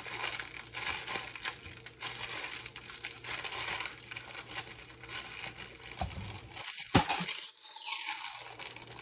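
Plastic bag of brownie mix crinkling and rustling as it is handled and emptied, with one sharp knock about seven seconds in.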